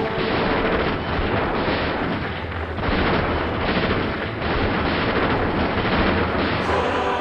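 Loud, dense rumbling noise that surges and eases every second or so, like a stage sound effect of distant explosions or thunder. Choir singing comes in near the end.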